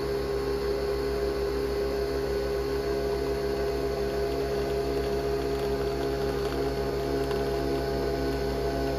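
Capsule coffee machine brewing coffee into a glass mug: a steady motor hum with a fast, even throbbing underneath.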